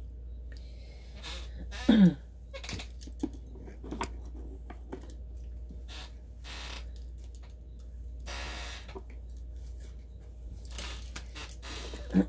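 Small handling noises: scattered light clicks, taps and short rustles, typical of tarot cards being gathered and laid out, with one short, loud falling creak about two seconds in.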